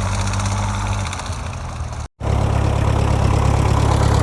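Vintage tractor engine running steadily. About two seconds in the sound cuts out for an instant, then a grey Ferguson 35's engine carries on with a louder, steady low hum.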